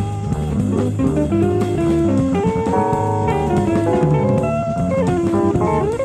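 Jazz-fusion band playing live, with a guitar lead over bass and drum kit, heard from a 1970s FM radio broadcast taped on cassette. The guitar line slides quickly upward near the end.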